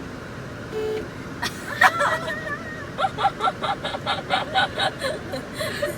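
Several people talking and laughing over a steady background rumble; the voices come in about a second and a half in and turn into quick bursts of laughter.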